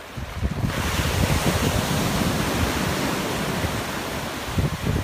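Ocean wave breaking at the shoreline, its whitewash rushing up the sand as a steady hiss that swells in just under a second in.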